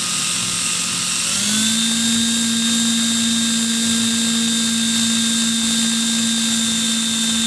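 Cordless drill running steadily as it spins the wire to twist it for a coil. Its motor whine steps up in pitch about a second and a half in as it speeds up, then holds.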